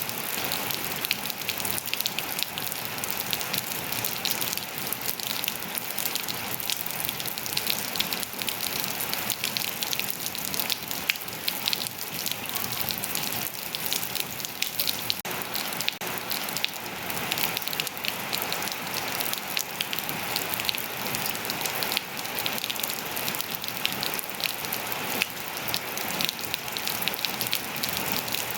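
Steady rain falling and pattering on surfaces, a dense even hiss full of fine drop ticks.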